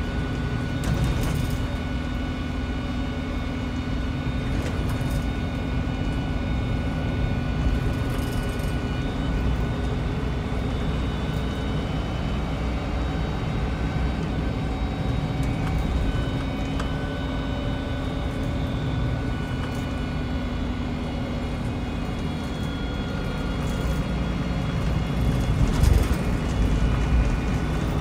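Cummins-retrofitted MAN 18.240 bus engine running, heard from inside the passenger saloon as a steady low drone with faint high whining tones and light rattles. The rumble grows louder near the end.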